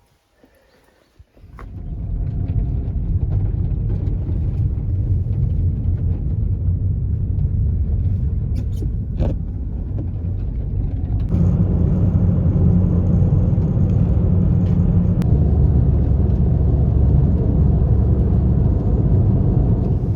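A motor vehicle's engine starts and runs with a steady low rumble, getting louder about eleven seconds in.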